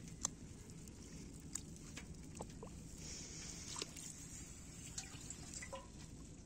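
Faint small trickles and drips of shallow muddy paddy-field water, with scattered light clicks and ticks.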